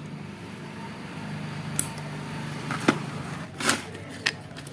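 A few light clicks and knocks from a plastic radio case being handled and opened, over a steady low hum.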